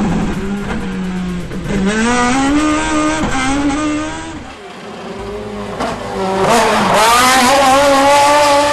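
Competition car's engine revving hard and changing up through the gears, its pitch climbing and dropping back with each shift. It fades for a moment about halfway, then climbs again and is loudest near the end.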